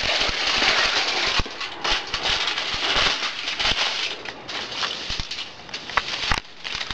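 Aluminium foil crinkling and crackling as it is folded by hand around a paper template. The crinkling is dense for the first few seconds, then thins to scattered crackles.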